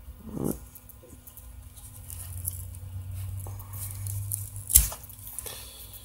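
A Ganzo 613 folding knife's blade sawing through a thick braided rope, with faint scratching of the fibres. A single sharp click just before five seconds in marks the blade cutting through.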